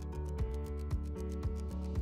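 Background music with a steady beat, about two beats a second over quick ticking in the highs.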